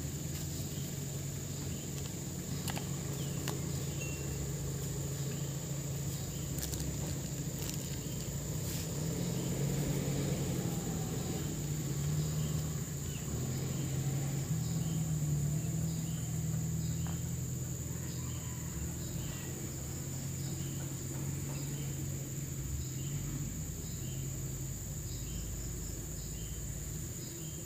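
Night-time insect chorus: a steady high trill, with a short chirp repeating about once a second, over a low steady hum.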